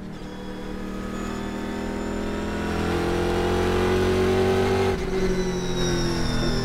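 Pratt & Miller Cadillac CTS-V-R race car's engine heard from inside the cockpit, pulling at full throttle with its pitch and loudness climbing slowly. About five seconds in the note dips briefly as the driver lifts off, then holds steadier.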